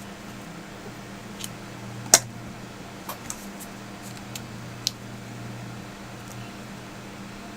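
Small sharp clicks and taps from handling a phone and its parts during a screen repair, about seven in the first five seconds, the loudest about two seconds in, over a steady low hum.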